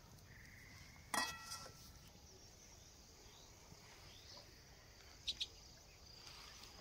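Quiet open-air ambience with a single sharp clink about a second in. A few faint high chirps follow, and a thin high tone near the end.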